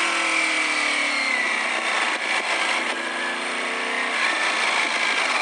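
Ducati Panigale V4S's V4 engine, fitted with a muffler, its note falling over the first second or so as the bike slows, then running at low speed with a slight rise around three to four seconds in.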